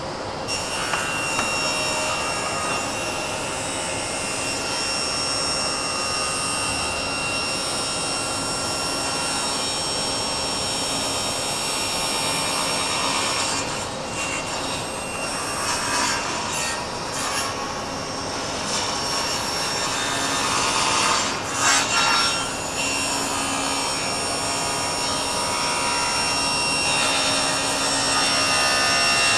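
Table saw ripping a wooden board lengthwise along the fence, the blade cutting steadily through the wood with the saw running throughout. The cutting swells louder for a few seconds twice, around the middle of the cut.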